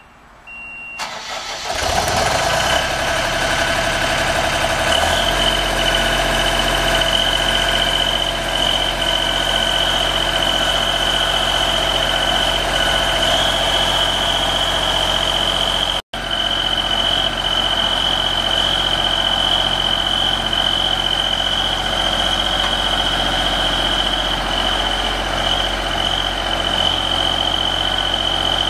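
Deutz diesel engine of a JLG 450AJ articulating boom lift starting after two short beeps, then running steadily while the boom is raised, with a steady high-pitched whine over the engine.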